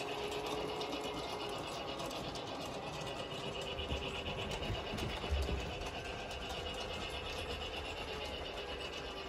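Toy train running on its plastic track: a small electric motor whirring steadily with a fast, even ticking. A few soft thumps around the middle.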